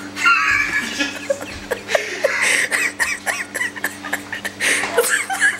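People laughing and snickering in bursts, with scattered sharp clicks and knocks.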